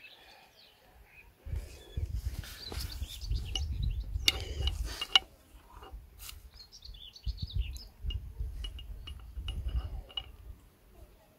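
A few sharp metallic clicks of pins and a tool being handled at the hub of a walk-behind tractor wheel, over two stretches of low rumble. Small birds chirp in the background.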